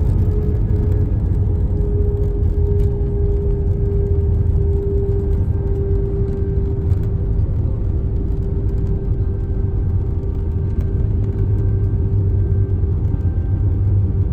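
Cabin noise of an Airbus A321-200 on its landing roll after touchdown, heard inside the cabin by the wing. The wheels and engines make a steady, loud rumble, with a steady hum over it.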